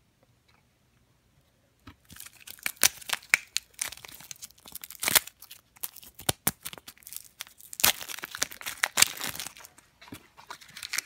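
Clear cellophane wrap being torn off a small plastic blind-box pumpkin and crinkled in the hands, a dense run of crackling with sharp snaps. It starts about two seconds in, after a near-silent pause.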